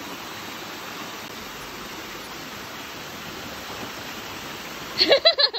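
Shallow mountain stream and a small weir waterfall, water rushing steadily. Near the end a person's voice cuts in loudly.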